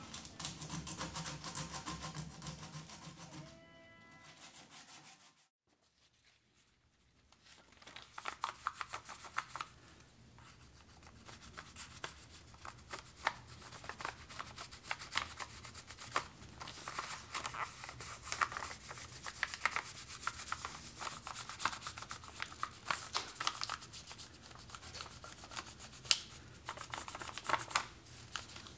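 Pencil scratching on a sheet of paper laid over a porous millstone, in many short quick strokes with brief pauses, as a line is marked on the paper.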